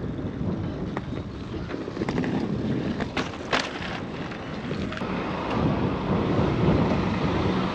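Wind rushing over the microphone while riding a bicycle, with a few sharp clicks about three seconds in. A steady low hum joins about five seconds in.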